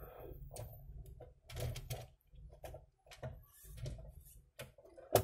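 Light plastic clicks and taps from the sensor bar and strip of an opened HP DeskJet GT 5821 scanner as they are pressed and seated into their housing, with a sharper click near the end.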